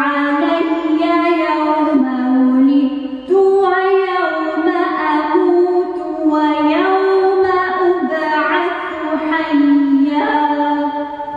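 A woman reciting the Quran in Arabic, chanted solo in long melodic phrases of held and gliding notes, closing on a long held note near the end.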